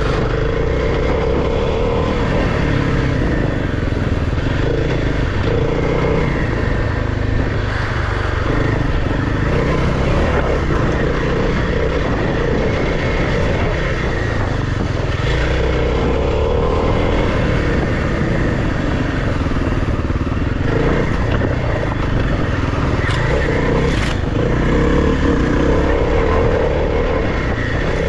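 Kawasaki KLX300's single-cylinder four-stroke engine running steadily under changing throttle as the dirt bike rides a trail, with a heavy low rumble of wind on the helmet-mounted microphone.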